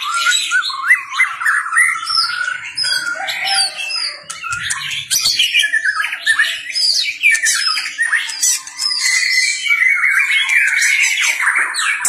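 Male white-rumped shama singing in full, heated competition song: a rapid, unbroken stream of clear whistles, trills, sweeping notes and sharp harsh notes.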